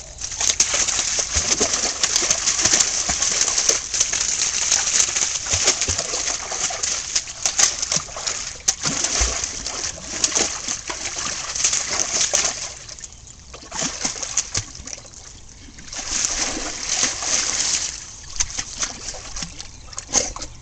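A dog splashing and wading in a garden pond, water sloshing and spattering in quick irregular bursts; the splashing eases off for a few seconds about two-thirds of the way through, then picks up again.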